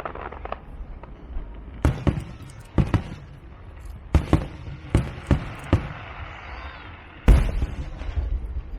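Aerial fireworks bursting: a string of separate, irregularly spaced bangs, about eight in all, with crackling between them. The loudest bang comes about seven seconds in.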